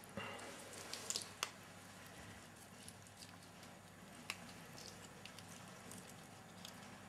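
Faint rustling of fingers pressing chopped parsley into halved artichokes in a frying pan, with a few small sharp clicks about a second in and another a little past halfway.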